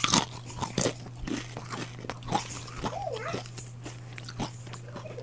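Close crunching and chewing of dry, crisp Mamee Monster snack noodles: a loud crunching bite in the first second, then a run of smaller crunches as they are chewed.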